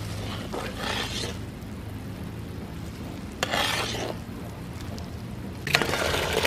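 Metal spatula scraping and stirring bubbling caramelised sugar in a large wok, in two rasping strokes. Near the end comes a sudden, louder crackling sizzle as the hot caramel is poured into a pot of liquid.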